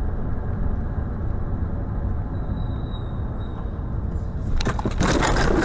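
Steady low road and engine rumble heard from inside a moving car. About four and a half seconds in, a loud, harsh, noisy sound cuts in and lasts over a second.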